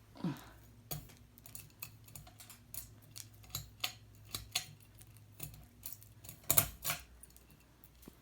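Ceiling fan's pull chain rattling and its speed switch clicking as the chain is pulled, in irregular light metallic clicks with a louder cluster about six and a half seconds in, over a faint steady low hum.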